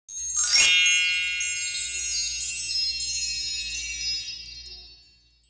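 Sparkling chime sound effect: a quick burst of shimmering high bell-like tones about half a second in, ringing on and fading away over about four seconds.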